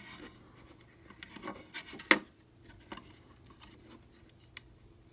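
Small screwdriver scraping and clicking as it works a tiny screw into a flip clock's mechanism. There are light scattered clicks and rubbing, with one sharper click about two seconds in.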